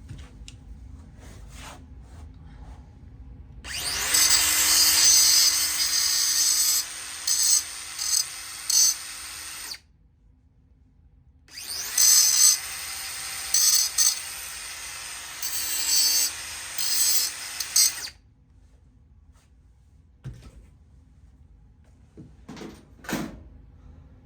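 Handheld electric power tool run twice for about six seconds each, its sound swelling and dropping as it bears on the car's bodywork. A few light knocks follow near the end.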